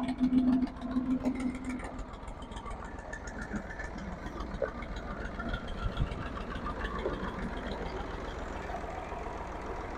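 IMT 540 tractor's diesel engine running steadily at low revs with an even rapid firing beat as the tractor is driven slowly. A humming tone sits over it for the first two seconds.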